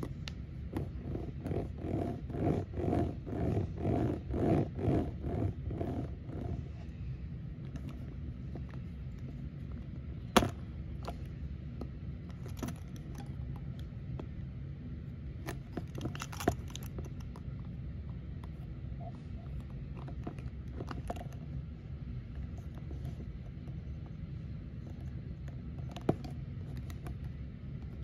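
Small Hot Wheels monster-truck toy handled in the hands: a rhythmic series of squeaky pulses for the first six seconds as its coil-spring suspension is pressed down again and again, then handling scrapes and a few sharp plastic clicks. A steady low hum lies under it all.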